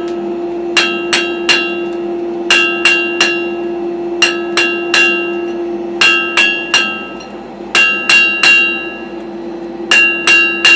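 Hand hammer forging a red-hot iron bar on an anvil: short runs of three or four ringing blows, with a pause between each run. A steady hum sits beneath the strikes.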